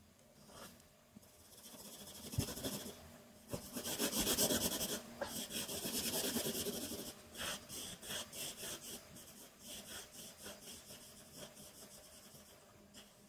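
Felt-tip art marker rubbing across paper: a stretch of fast continuous scribbling, then short repeated strokes about two a second.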